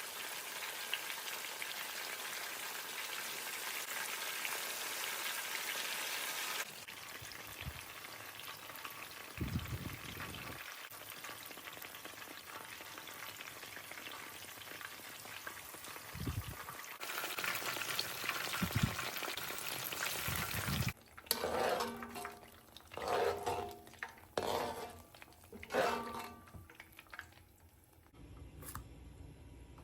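Battered banana fritters sizzling as they fry in hot oil, with a few soft knocks in between. For the last several seconds the sizzling stops and gives way to a run of short, separate sounds.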